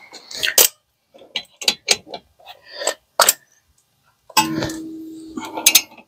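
Scattered metal clicks and clinks of a wrench working the caliper bolts on a car's front brake caliper as they are tightened. About four and a half seconds in comes a longer noisy sound carrying a steady hum that lasts over a second.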